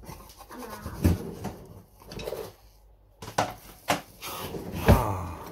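A metal spatula knocking and scraping against a frying pan as a pancake is turned over: a few separate clacks, the loudest near the end.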